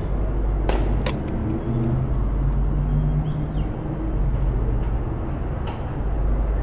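Gasoline being pumped into a motorcycle's fuel tank: a steady low hum and rumble from the dispenser and fuel flow, with two sharp clicks about a second in.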